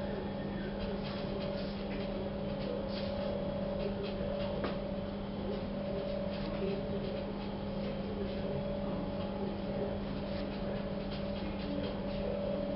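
Steady low mechanical hum, with faint irregular ticks and scratches over it.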